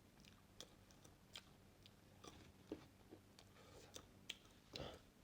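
Faint eating sounds close to the microphone: a person chewing, with scattered small clicks and mouth noises and one slightly louder smack near the end.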